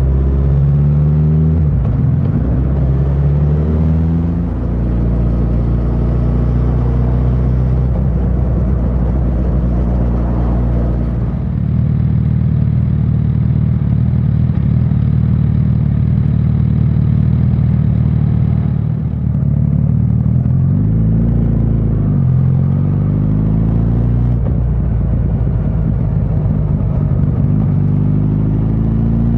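Suzuki GSX1300R Hayabusa's inline-four engine under way, its pitch rising repeatedly as the bike accelerates through the revs, with a steady stretch of cruising about midway.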